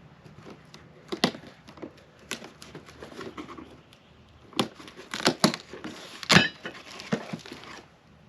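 Steel L-shaped mounting brackets being handled and set down: a string of irregular clanks and knocks, the loudest about six seconds in with a brief metallic ring, amid rustling of packaging.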